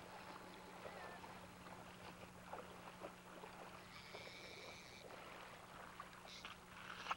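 Near silence: faint outdoor ambience over a steady low hum, with a brief high whistling tone about four seconds in and a few faint clicks near the end.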